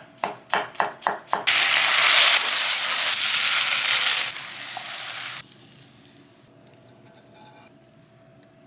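Food sizzling in hot oil in a frying pan: a few short sizzling bursts in quick succession, then a loud steady sizzle that eases and cuts off abruptly about five seconds in.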